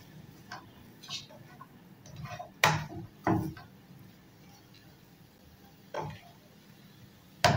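A spatula knocking and scraping against a frying pan while stir-frying vegetables and chicken, in separate strokes: two sharp knocks about two and a half and three seconds in, another about six seconds in, and a clatter near the end.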